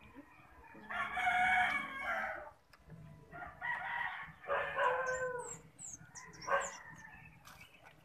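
A rooster crowing twice, each crow a long call, with a few short high bird chirps in between.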